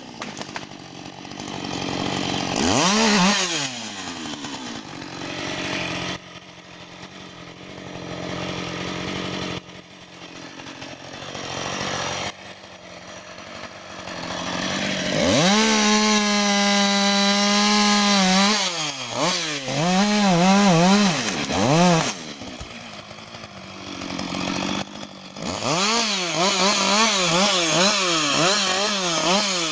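Husqvarna 560 XP two-stroke chainsaw cutting through fallen trunks. The engine falls back from a cut right at the start, then runs quieter with brief blips. In the middle it holds full throttle under load for about three seconds, and near the end it revs up and down again and again as it goes in and out of cuts.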